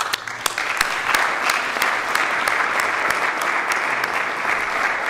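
Audience applauding: many hands clapping at once, starting suddenly and keeping up steadily.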